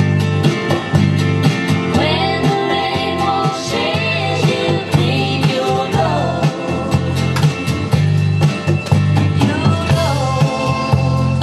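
Recorded music with singing, guitar and a steady drum beat, played over loudspeakers through a Pioneer SX-1980 stereo receiver.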